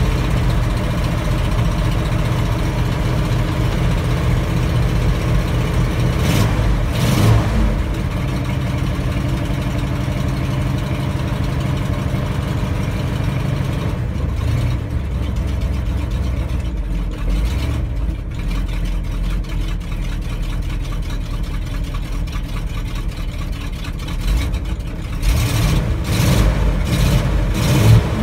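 1965 Ford F-250's 352 V8 idling while it warms up after a cold start, with a brief blip in engine speed about a quarter of the way through and a few quick ones near the end.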